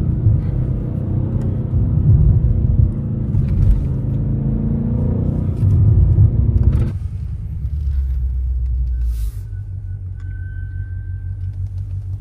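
BMW M8 Competition's twin-turbo V8 pulling hard, heard from inside the cabin, its pitch rising and falling with the revs. About seven seconds in, the throttle closes and the engine drops suddenly to a quiet, steady low rumble as the car slows to a stop.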